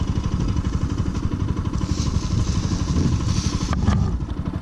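Bajaj Pulsar RS200 motorcycle's single-cylinder engine running under way, a steady run of fast even firing pulses. A couple of sharp clicks a little before the end.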